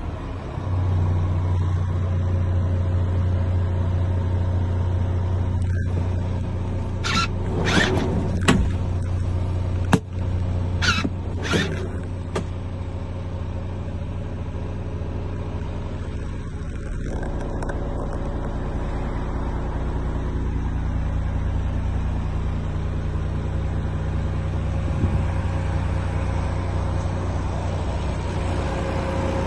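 Renault T 460 truck's six-cylinder diesel engine idling steadily, heard from inside the cab. A handful of short clunks and rustles come partway through.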